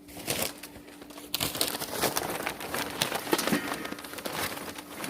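Lumps of charcoal clinking and scraping as they are handled and dropped into a grill, a dense run of small clicks and rustles that thickens about a second and a half in.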